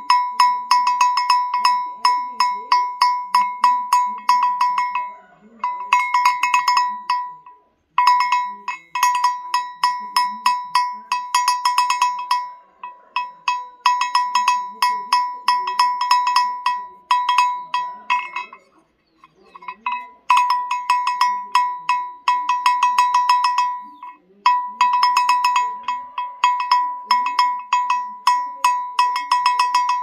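Rusty sheet-metal chocalho, the boxy bell hung on goats and sheep, shaken by hand: quick clanks several times a second, each ringing at the same bright pitch, in runs of a few seconds with short pauses between them, the longest about two-thirds of the way through.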